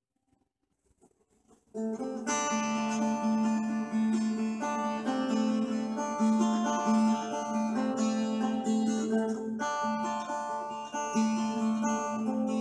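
Quiet for under two seconds, then a teardrop-bodied mandolin-family instrument is picked through a small valve guitar amp built into a WWII ammo can. A run of picked notes plays over a strongly ringing low note.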